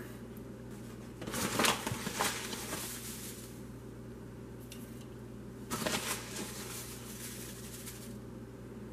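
Sugar poured from a plastic measuring spoon into the metal pan of a bread machine, a granular hissing patter. It comes in a longer stretch about one to three seconds in and a shorter one about six seconds in.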